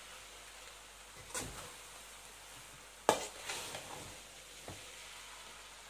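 Long-handled metal spoon stirring rice in a metal pan, with a few scrapes and clinks against the pan, the loudest about three seconds in, over a faint steady hiss.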